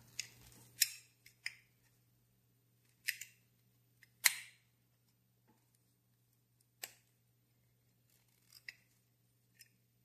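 Pliers gripping and turning a metal fitting on a Ronson gas lighter, making a scattering of sharp metallic clicks and short scrapes several seconds apart. The loudest click comes about four seconds in.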